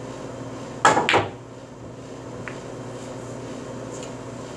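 A pool shot: the cue tip strikes the cue ball, then the cue ball hits an object ball a quarter second later with a sharp clack. A small ball click follows about a second and a half later.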